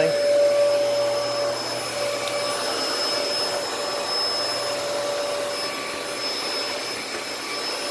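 Dyson DC14 upright vacuum cleaner running steadily: the motor's whine over the rush of air, with one note in it fading about a second and a half in.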